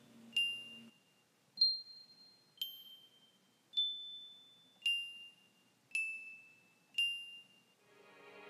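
A slow, eerie tune of single high chime-like notes, seven of them about a second apart, each struck cleanly and ringing briefly before fading, the pitch stepping up and down from note to note.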